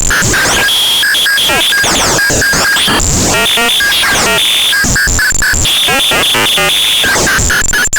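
Paratek "КОСМИЧЕСКИЙ ШУМ" eurorack module, a Jupiter Storm-style noise source built on square-wave oscillators, putting out harsh, chaotic electronic noise. Squealing high tones switch on and off in rapid stutters, with sweeping pitch glides in between.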